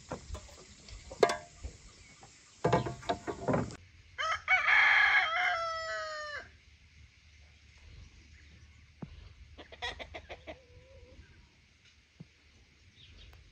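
A rooster crows once, a loud call of about two seconds whose pitch drops at the end, a few seconds in. Just before it come several sharp knocks.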